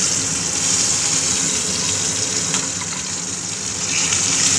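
Pabda fish frying in hot oil in a frying pan: a steady sizzle with small crackles running through it.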